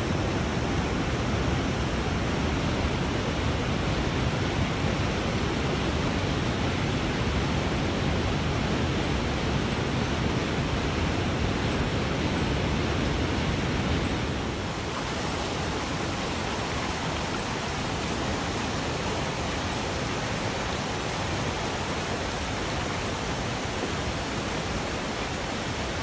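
Rushing water of a creek cascading down a rocky gorge: a steady, dense rush that drops slightly in loudness about halfway through.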